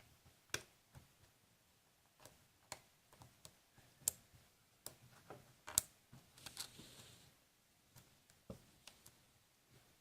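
Faint, irregular clicks and light scrapes of a lock pick and tension wrench working the spool and serrated pins inside a Master Lock Lockout padlock's core. The pick is lifting and setting pins under light tension, a few sharper ticks standing out among softer ones.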